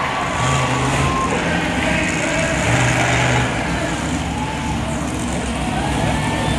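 Monster truck's supercharged V8 running at low revs while the truck drives slowly, its pitch rising and falling a few times.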